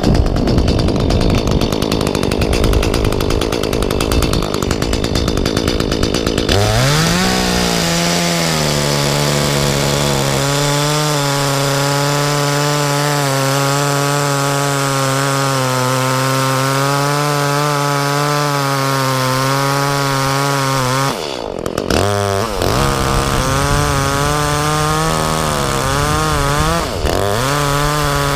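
Echo two-stroke chainsaw running at high revs and cutting oak. A loud rushing noise comes first; then the engine holds a steady, slightly lowered pitch under load. The throttle drops briefly twice near the end.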